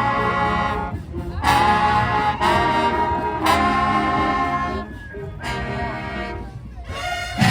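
High school marching band's brass section playing a series of long held chords, each about a second long with short breaks between them.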